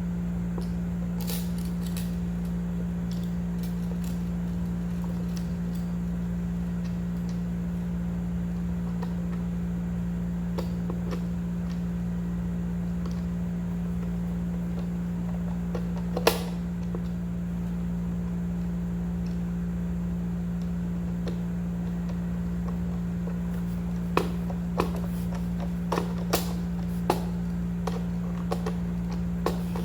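A steady low hum, with a single sharp click about halfway through and a run of clicks and light knocks in the last six seconds as cabinet boards and hardware are handled.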